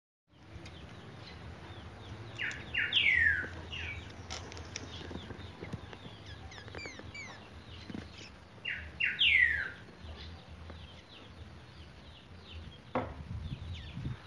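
Young creamy-bellied thrush (chalchalero) singing the same short phrase twice, about six seconds apart: two quick notes, then a loud slurred note falling in pitch. Fainter high chirps run between the phrases, and there is a single sharp click near the end.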